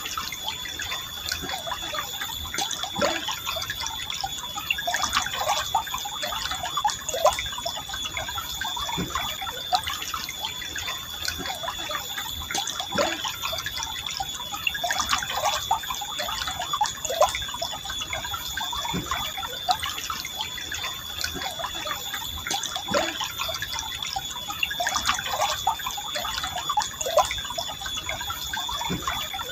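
Stream water flowing gently, with a continuous trickle broken by many small bubbling gurgles and drips. A faint steady high-pitched tone runs underneath.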